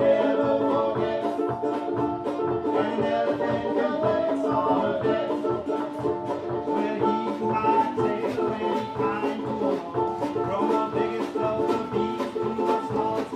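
Live string band playing an instrumental passage: banjo picking over a steady beat of drum and cymbal strokes.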